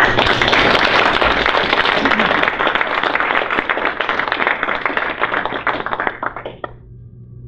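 Audience applauding: dense clapping from a roomful of people that starts at once, thins out and stops after about six and a half seconds.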